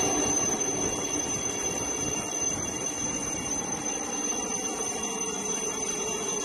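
Military helicopter hovering low overhead, its rotor and engine running steadily.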